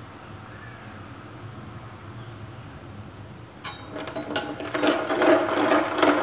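Metal spoon stirring and scraping against a stainless steel saucepan of sugar syrup, a loud run of metallic scrapes and clinks with a ringing tone that starts a little past halfway. Before that only a faint steady hum.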